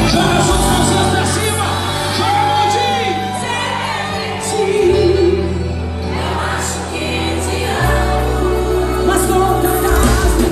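Loud forró band music with a singer over a steady bass line that shifts note a couple of times.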